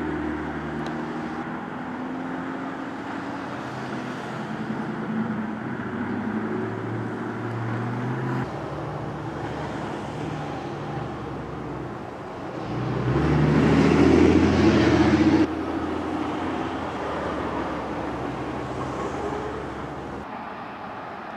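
Highway traffic passing, with a steady rush of tyres and engines and one louder vehicle going by about 13 seconds in.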